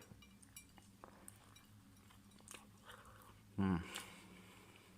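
A person biting into and chewing a microwaved chicken burger close to the microphone, with soft scattered mouth clicks and a brief voiced hum about three and a half seconds in.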